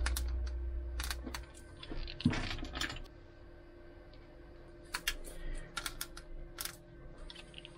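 Hand wire stripper/crimper pliers clicking and snapping irregularly as they work the ends of an electrical cable, with a short scraping rustle of wire and a low handling rumble near the start.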